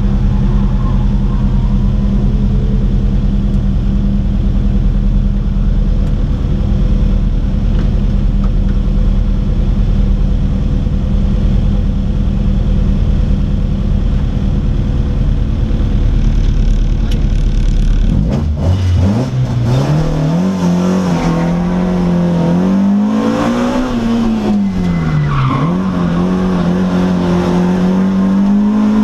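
Mercedes 190 E 2.3-16V's four-cylinder engine, heard inside the cabin, idling steadily for about 18 seconds. Then the car pulls away, the revs rising and falling as it drives off.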